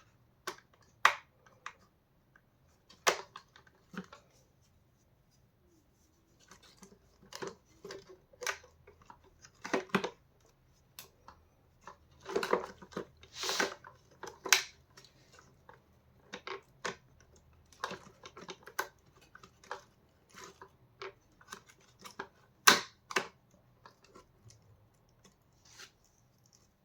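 Irregular clicks, knocks and short scraping rubs of plastic parts being handled and fitted together as a vacuum cleaner's brush bar assembly is put back together, with a longer run of rubbing about halfway through.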